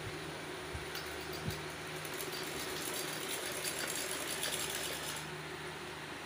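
Vermicelli (sevaiyan) press running as wheat dough is forced out through its die in strands: a steady mechanical whirr with a low hum, and a soft knock about a second and a half in.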